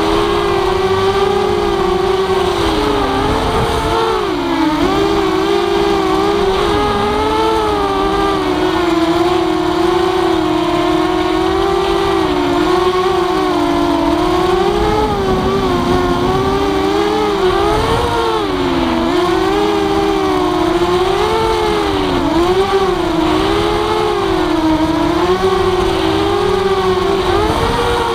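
Walkera F210 racing quadcopter's brushless motors and propellers whining in flight, the pitch rising and falling constantly as the throttle changes, with the motors sounding at slightly different pitches.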